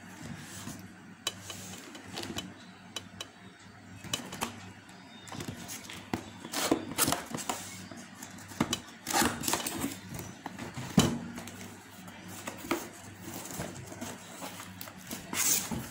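A cardboard cookware carton being handled and opened by hand: scattered knocks, taps and scrapes of the box and its flaps, with a few louder rustles about halfway through and near the end. A low steady hum runs underneath.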